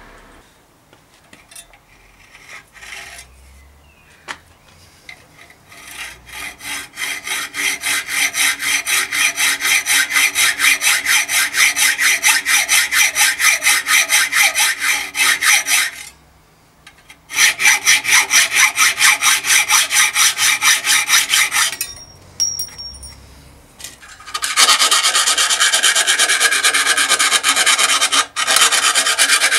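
Hacksaw cutting through a threaded steel bicycle fork steerer tube held in a vice, in rhythmic back-and-forth strokes that start about six seconds in and pause twice. Near the end a round file rasps quickly around the inside of the cut tube, deburring it, louder than the sawing.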